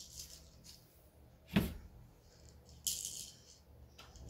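A white wooden crib end panel being handled: one sharp knock about a second and a half in, with light rattling and a brief rustle near the end.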